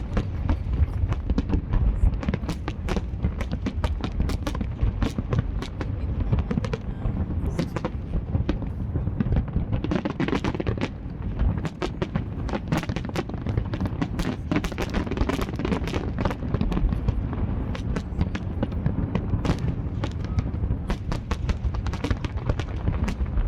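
Aerial fireworks display: many rapid bangs and crackles, several a second, over a steady low rumble.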